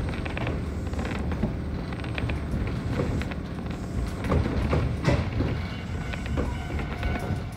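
Konan Railway 7000-series electric train running, heard inside the front cab: a steady low rumble with many scattered creaks and clicks.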